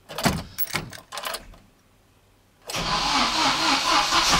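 A few clicks, then from about two and a half seconds in the GAZelle van's starter cranking the engine.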